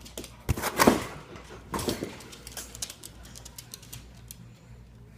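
A beagle gives one big, loud burp about half a second in, followed by a second, shorter burst about a second later, over light rapid clicking.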